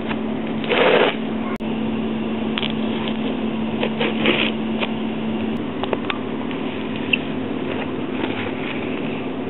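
Packing tape being cut and peeled off a cardboard box: scattered scraping, crinkling and tearing noises, the loudest a burst about a second in and another around four seconds in, over a steady low hum.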